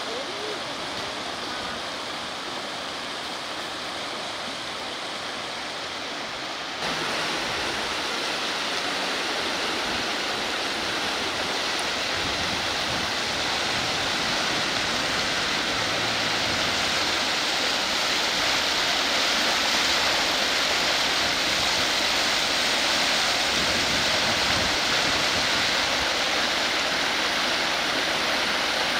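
Steady rush of flowing river water, growing abruptly louder and brighter about seven seconds in and then holding steady.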